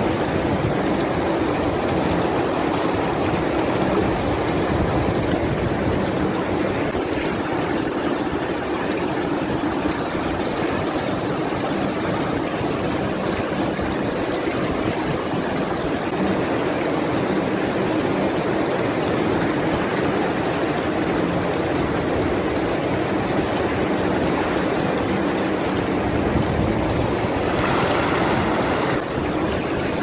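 Small waterfall: water pouring over a rocky ledge and churning into the pool below, a steady rush that turns briefly hissier near the end.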